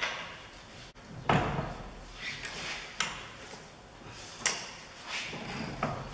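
Metal clunks and knocks from a car's front suspension strut and steering knuckle being worked together as the lower bolt is pushed through the knuckle. A handful of sharp knocks and clatters, the loudest about a second in.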